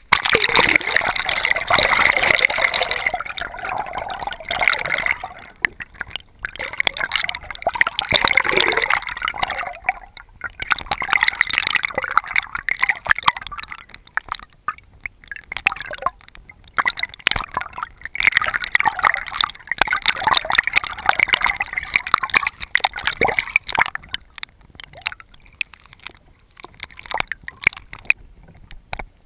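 Water gurgling and bubbling heard underwater, with many small clicks, in loud surges a few seconds long that come and go, growing fainter near the end.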